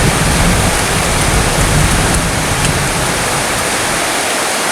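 Heavy rain falling steadily, a dense even hiss, with a low rumble underneath that dies away near the end.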